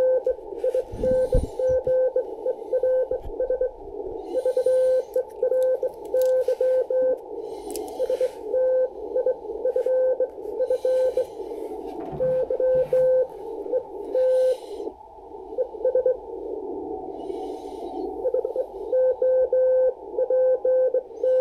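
Morse code (CW) received on an ICOM IC-7300 HF transceiver tuned to 7.035 MHz in the 40 m band. A single steady mid-pitched beep is keyed on and off in dots and dashes at about 18 words a minute, over a constant band of receiver hiss.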